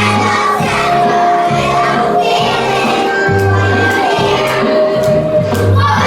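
Music playing loudly with a steady bass line, with children's voices singing.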